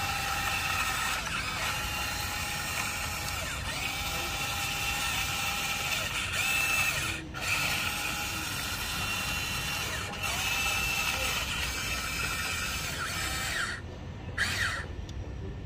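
Electric motors and gearing of a Huina RC excavator whining as it works its boom, arm and bucket and turns. The whine glides up and down in pitch as each motion starts and stops, with short breaks about seven and ten seconds in and a drop near the end.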